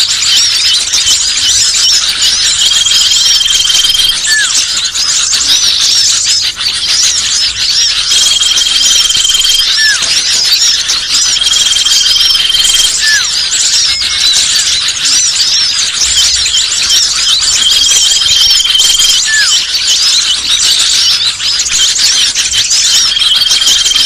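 Bird-lure call recording: a dense, noisy chorus of many small birds chirping and twittering at once. A long steady high whistle comes back every few seconds, and a short upward note at a lower pitch sounds now and then.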